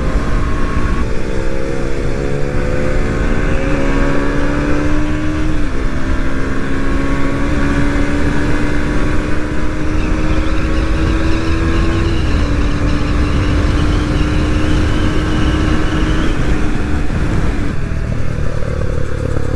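KTM Duke motorcycle's single-cylinder engine pulling hard through the gears: its note climbs steadily, then drops at each upshift, a few times over, under a steady low rush.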